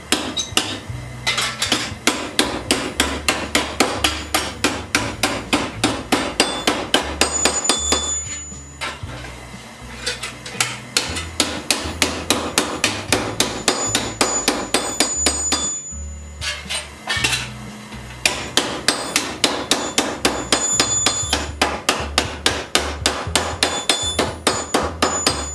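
Hammer striking steel at a bench vise, flattening a bend out of a piece of scrap metal, in quick runs of blows about three a second with a metallic ring. The hammering pauses briefly twice.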